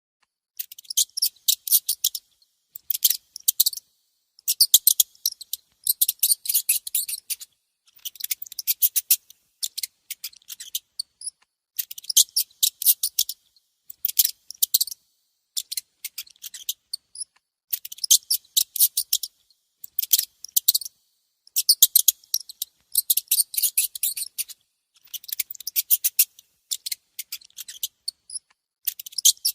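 Mice sound effect: bursts of rapid, high-pitched clicking chatter, each lasting a second or two, repeating with short gaps, with a few brief faint squeaks in between.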